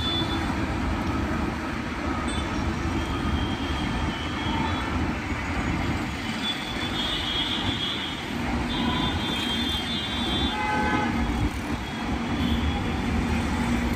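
Steady road-traffic noise from a busy multi-lane highway, with vehicle horns honking again and again through it, several of them held for a second or so.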